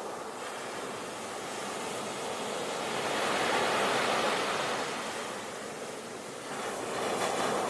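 Ocean waves breaking on the shore: a steady wash of surf that swells to a crash about halfway through, ebbs, and builds again near the end.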